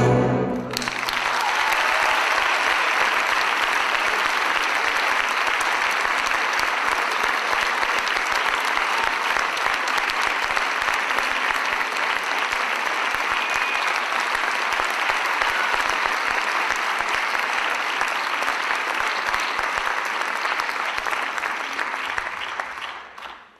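Orchestral music ends on a final chord about half a second in, and an audience breaks into steady applause that fades away near the end.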